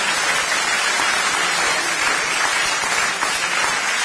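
Theatre audience applauding, a steady dense clapping at the end of a stand-up comedy set.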